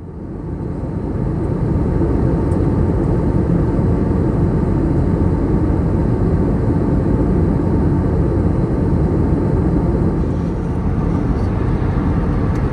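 Steady rumble of engines and airflow inside the cabin of an Airbus A321neo in flight, fading in over the first second or two.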